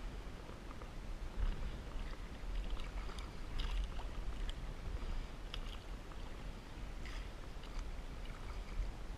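Double-bladed paddle strokes on an inflatable canoe: short splashes and drips every second or so as the blades dip in and lift out of the water, over a steady low rumble.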